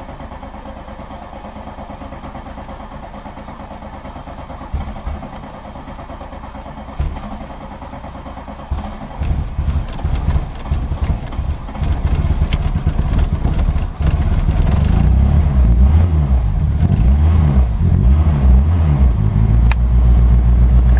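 VW Golf petrol engine cranking on the starter, then coughing and firing unevenly as the gas pedal is worked, and catching about fourteen seconds in to run louder with revs rising and falling. It is hard-starting because water in the spark plug leads is arcing out instead of reaching the plugs.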